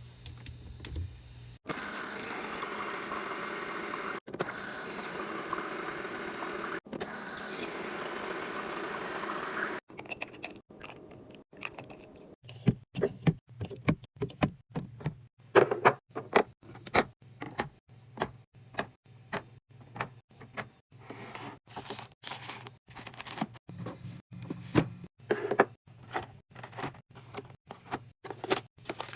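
A steady rushing hiss for about eight seconds that cuts off abruptly, followed by a long run of irregular sharp clicks and clacks of packaged drinks and snacks being set down and arranged while a fridge is restocked.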